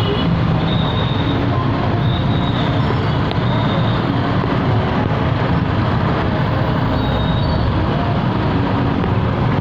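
Steady engine and road noise from a vehicle creeping through dense traffic of cars and motorbikes, with the surrounding traffic mixed in.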